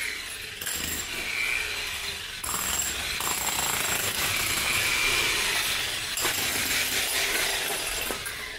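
Handheld electric power tools breaking up alley paving: a steady loud grinding and hammering noise with a high whine, growing louder about two and a half seconds in and fading near the end.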